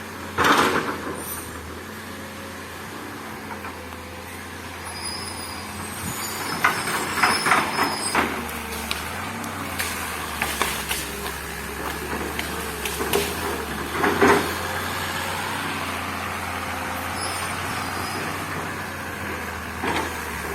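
Heavy earthmoving machine's diesel engine running steadily, with loud knocks and clatter: one sharp knock about half a second in, a cluster around seven seconds, and another near fourteen seconds.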